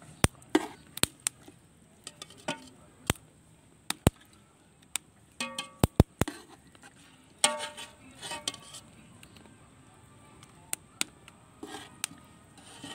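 Metal slotted skimmer clinking and scraping against the side and bottom of a metal cooking pot as fried chicken pieces are lifted out. The sound is a scattered series of sharp metallic taps, a few of them ringing briefly.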